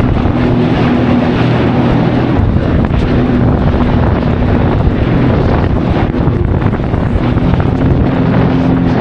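Jet ski engine running steadily at speed, with wind buffeting the microphone and the rush of spray from the hull. The engine note holds steady throughout.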